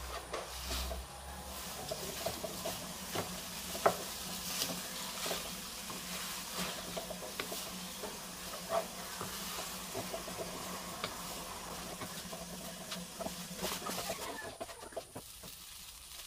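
Rice vermicelli sizzling as it is stir-fried in a non-stick wok, with a wooden spatula scraping and tapping against the pan in scattered clicks.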